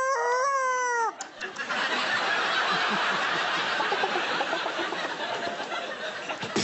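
A performer's wavering, wailing vocal sound effect, cut off about a second in, followed by a studio audience laughing.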